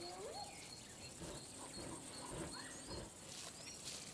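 Lion cubs feeding on a zebra carcass, with faint, scattered animal sounds. Short bird chirps come through over them.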